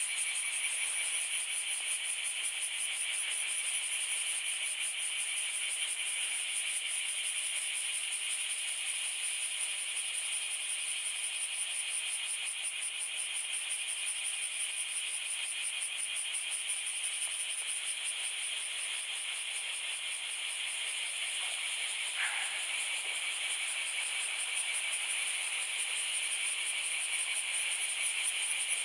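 Steady chorus of insects, a fast, even, high-pitched buzzing trill that does not let up. About 22 seconds in there is one brief falling squeak.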